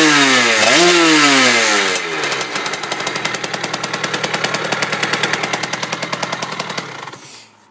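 Two-stroke CPI Supermoto engine fitted with an 80cc Polini cylinder kit and Yasuni R2 exhaust, blipped twice, the second rev about a second in. It then drops back to a pulsing idle and stops near the end.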